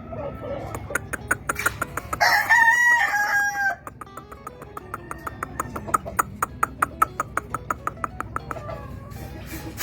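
Gamefowl rooster crowing once, loudly, about two seconds in, over a steady run of rapid clicks.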